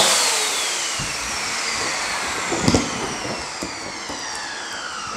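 CD-608 electric balloon inflator's motor winding down after a short timed burst, its whine falling steadily in pitch and fading. A brief knock comes about two and a half seconds in.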